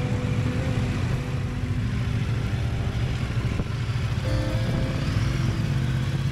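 Husqvarna Norden 901's parallel-twin engine running at low speed as the motorcycle rides off a ferry, under background music.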